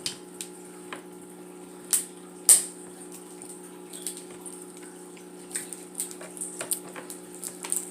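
Close-up eating sounds from a seafood boil: scattered clicks and smacks of shellfish being picked apart and chewed, the sharpest about two and a half seconds in, over a steady low hum.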